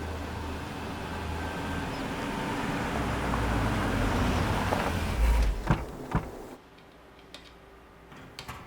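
A car driving, its engine and road noise rising and then stopping as it pulls up. About five and a half seconds in come a heavy thump and two sharp knocks, car doors shutting. After that only faint clicks remain.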